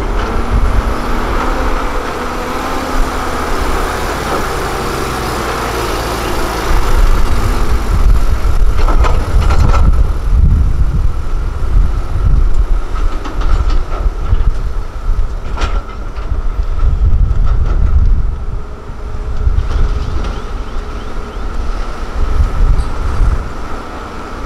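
Loaded Hyundai dump truck pulling away, its diesel engine running under load with a deep rumble and body rattle, and a few sharp metal clanks from the dump body.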